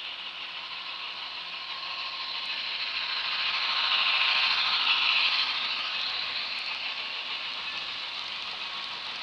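HO scale model train running on its track: the diesel locomotive's wheels and motor rattle and whir, getting louder as it passes close by about four to five seconds in, then easing as the boxcars roll past.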